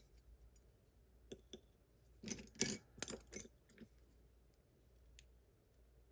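Small metallic clicks and clinks as a pin-tumbler lock is gutted: tweezers and tools handling the lock's driver pins and springs, with a quick run of clinks about two to three and a half seconds in.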